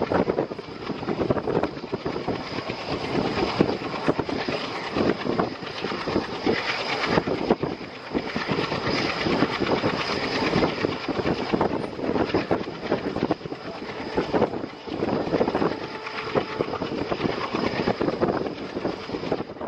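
Express passenger train running at speed, heard from on board: steady rush of air with wheels clattering over the rails.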